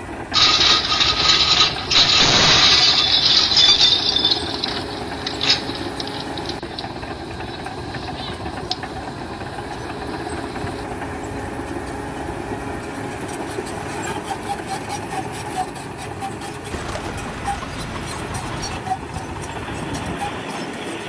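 Heavy construction machinery running, with a loud hissing, rattling burst over the first four seconds that then settles into a steadier engine din with scattered clicks.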